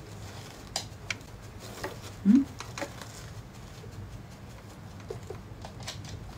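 Scattered small clicks and taps from makeup being handled while a blush brush is worked over the cheek. About two seconds in there is one brief, low, rising tone, the loudest sound.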